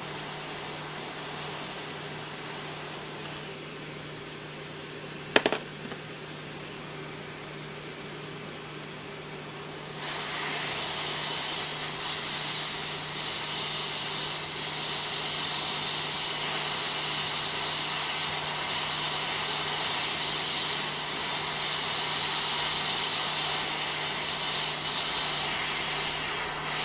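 Hot air rework station blowing a steady hiss of hot air onto a circuit board to reflow a chip's solder, over a steady low hum. A sharp double click comes about five seconds in, and the air hiss grows louder about ten seconds in.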